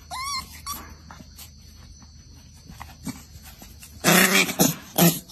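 A puppy's high, squeaky whines at the start. After a quieter stretch, a puppy gives a loud run of rough, growly yaps near the end.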